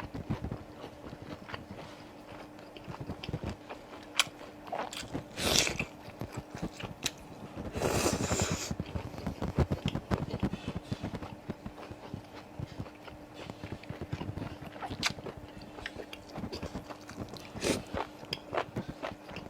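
Close-miked biting and chewing of cold-spiced tripe, with many small wet clicks and crunches. There is a short noisy burst about five and a half seconds in and a longer one about eight seconds in, over a faint steady hum.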